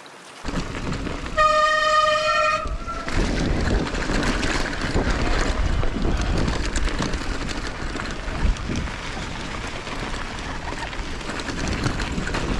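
Wind buffeting a handlebar-mounted camera's microphone over the rattle of mountain bike tyres and frame on a gravel track, with a steady high tone held for about a second and a half near the start.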